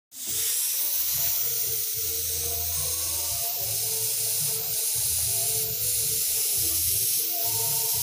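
F-75 gravity-feed air spray gun hissing steadily as it sprays finish onto a wooden table top.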